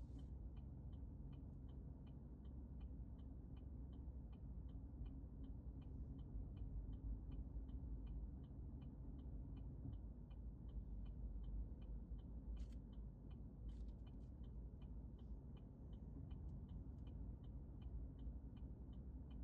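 Car turn-signal indicator ticking steadily inside the cabin, about three ticks a second, over the low rumble of the car's engine and road noise, with a couple of sharper clicks about two-thirds of the way through.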